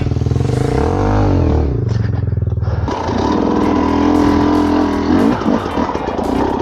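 Dirt bike engine running at low speed under short throttle blips, with one quick rev up and back down about a second in and a brief dip in level a couple of seconds later.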